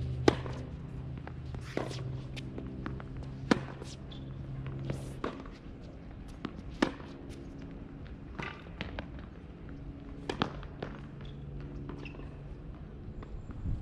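Tennis ball struck back and forth by rackets in a rally: about eight sharp hits, one every second and a half or so, alternately louder and fainter.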